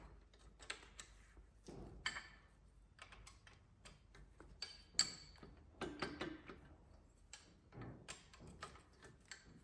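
Metal engine parts and hand tools clinking and tapping as a Continental flathead engine is taken apart: scattered light clicks and knocks, a few with a short metallic ring, the sharpest about five seconds in.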